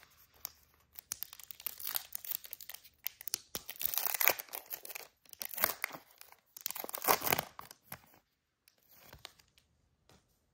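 Trading-card pack wrapper being torn open and crinkled in a run of irregular bursts, stopping about eight seconds in.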